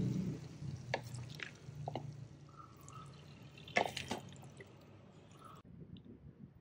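Metal spatula scraping and clinking against a wok while sauce-coated sweet and sour pork is scooped onto a plate, with soft wet drips of sauce. A few sharp clicks, the loudest about four seconds in, and a low hum that fades away in the first second.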